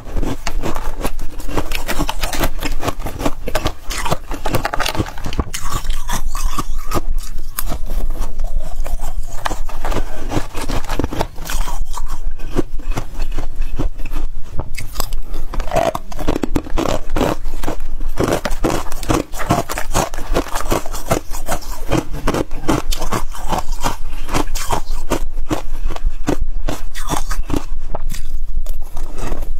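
Freezer frost being scraped, bitten and chewed: a dense, unbroken run of crunches and scrapes.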